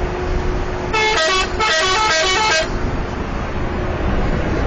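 Coach's multi-tone musical horn (an Indonesian 'telolet' bus horn) playing a quick run of changing notes in two bursts, starting about a second in, over the steady drone of the bus running at highway speed.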